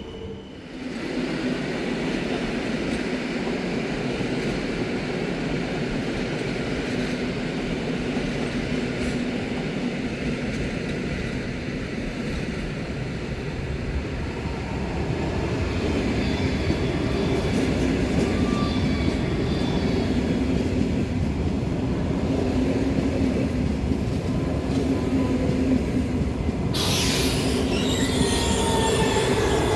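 ED250 Pendolino electric multiple unit rolling into the station: continuous rail rumble with wheel squeal, getting louder from about halfway through. A sudden sharp hiss sets in near the end.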